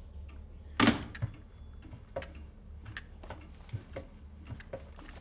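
A single sharp knock about a second in, then faint scattered clicks over a low steady hum.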